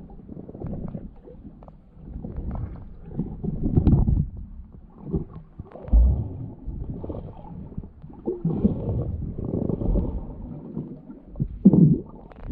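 Muffled, irregular sloshing and rumbling of water that surges and fades, with a few dull thuds, as picked up by a camera moving through the water of a cenote pool.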